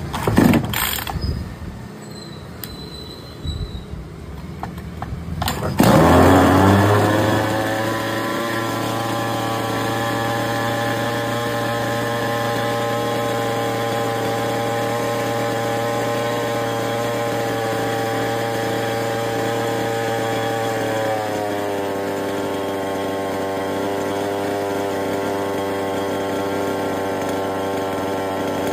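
Flymax petrol chainsaw's two-stroke engine catching about five and a half seconds in, falling from a brief high rev to a steady idle. The idle drops a little lower about twenty seconds in. The saw that had a starting problem is now starting and running.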